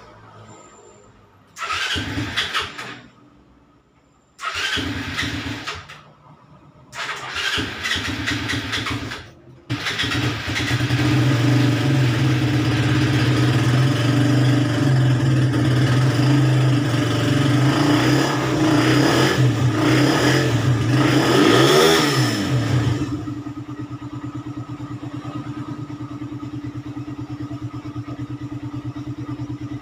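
Suzuki Raider 150's single-cylinder four-stroke engine being cold-started after a valve-clearance adjustment: three short cranking tries, then it catches about ten seconds in. It runs fast, revs up and back once, and then settles to a steady idle. The start is only mildly hard.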